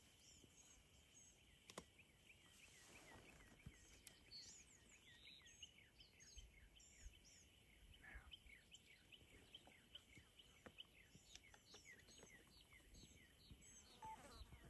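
Near silence with faint, quick bird chirps repeating throughout, over a faint steady high insect hum.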